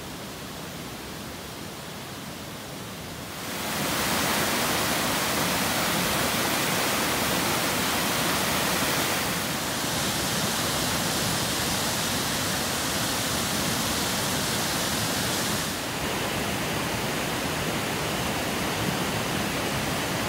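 Steady loud rushing of the rain-swollen river pouring over a weir, an even hiss that jumps in level about three and a half seconds in and changes tone abruptly twice more.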